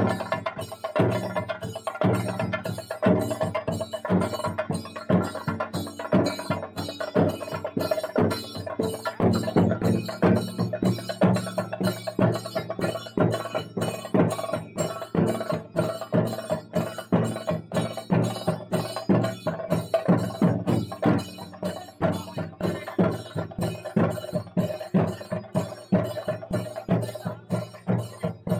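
Traditional percussion music: a fast, even run of sharp drum and wood-block-like strikes over a steady held tone.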